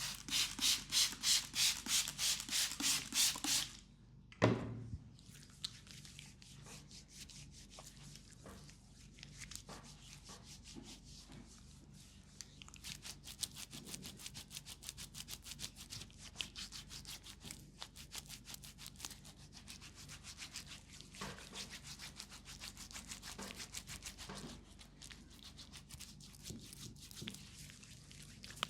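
Hands rubbing briskly over a leg in a massage: loud rhythmic strokes, about three to four a second, for the first few seconds, then a single thump, then lighter, quicker rubbing.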